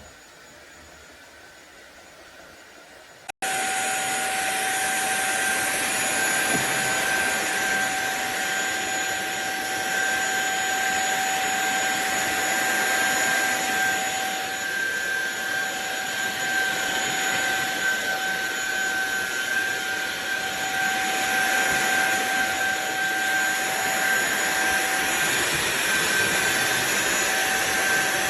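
SunSare cordless stick vacuum cleaner's motor running steadily with a whine, vacuuming the floor. Faint hiss for the first three seconds or so, then the vacuum comes in abruptly at full level.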